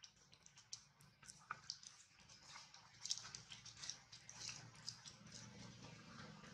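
Faint, irregular soft clicks and rustles from a mother monkey and her newborn moving close to the microphone on dry leaves, with a low hum rising near the end.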